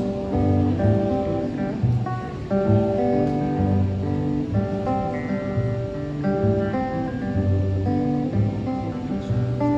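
An acoustic guitar strummed over an upright double bass line, playing the instrumental introduction of a song with no singing.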